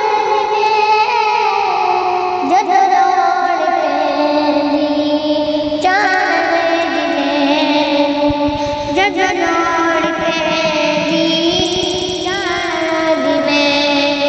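Naat singing: a voice holding long, drawn-out notes with quick gliding ornaments, no clear words heard.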